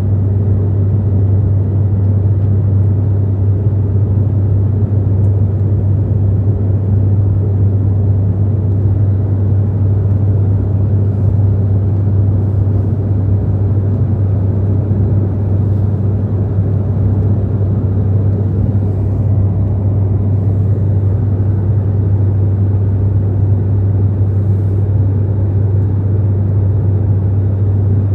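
Steady, unchanging engine drone heard inside a passenger airliner's cabin, with a strong low hum.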